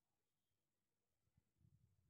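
Near silence, with a few faint low rumbles in the second half.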